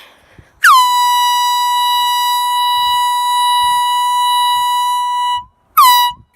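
Handheld canned air horn blasting loudly: one long blast of nearly five seconds, its pitch sliding down briefly as it starts, then a short blast and the start of another near the end.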